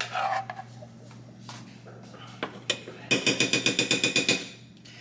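A metal spoon clinking against a small metal saucepan of melted queso: a couple of single clinks, then about a dozen quick, ringing taps in just over a second, a little past halfway.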